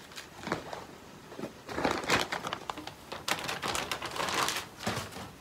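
Plastic packaging crinkling and rustling as supplies are handled, in two irregular spells with a few sharp clicks.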